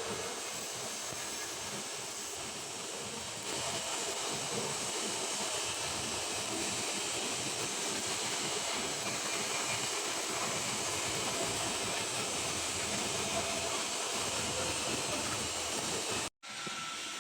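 Stick (SMAW) welding arc on carbon steel pipe, a steady frying crackle that carries on with a brief break near the end.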